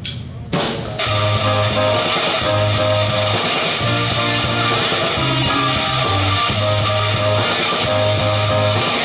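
A live rock band plays electric guitar, bass and drums. A few sharp drum hits come first, and the full band kicks into its song about a second in.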